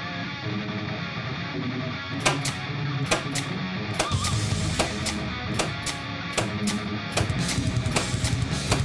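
Rock-style background music with guitar, the drums coming in about two seconds in with sharp, steady hits.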